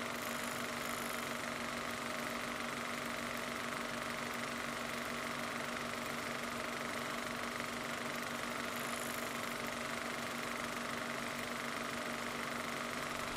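Steady mechanical hum and whir, unchanging throughout, with a constant low drone and a fixed higher tone over a faint hiss.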